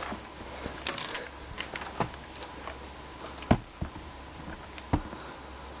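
Scattered clicks and knocks of hand work on a riding mower's front wheel, about six in all at irregular spacing, the sharpest about three and a half seconds in.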